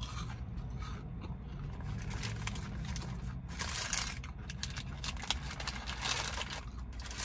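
Chewing a burger, with the paper wrapper crinkling as it is handled, in several rustling spells. Under it runs a steady low rumble of outdoor noise coming in through the open car windows.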